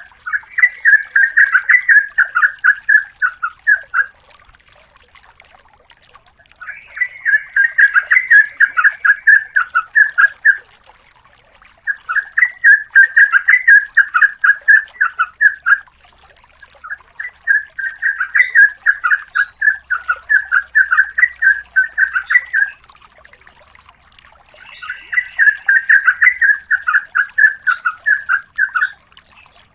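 Yellow-vented bulbul (trucukan) singing in long rapid runs of repeated notes, five phrases of about three to four seconds each with short pauses between.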